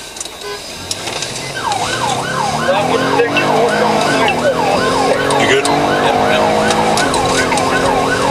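Police cruiser's siren switching on about two seconds in and sounding a fast yelp: quick rising sweeps, about three a second.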